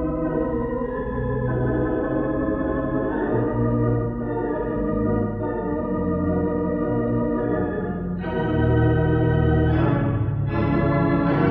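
Hilsdon 3/29 theatre pipe organ playing held chords. About eight seconds in, a louder, brighter registration comes in.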